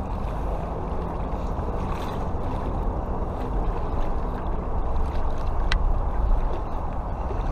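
Steady rushing of a fast-flowing river close at hand, full and low, with a few faint small ticks.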